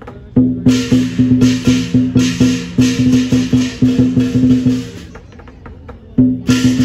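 Lion dance percussion band playing a fast, driving beat on drum and cymbals. The beat breaks off briefly just after the start, drops away again for about a second past the middle, then starts up once more.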